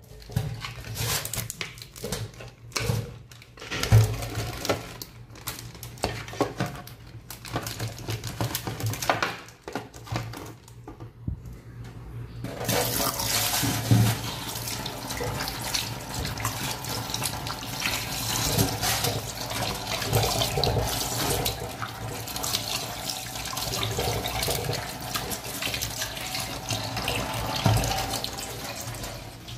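Kitchen tap running onto chicken gizzards being rinsed and rubbed by hand in a bowl in a stainless-steel sink, with uneven splashing and a couple of sharp knocks at first. From about twelve seconds in the water runs in a steady stream.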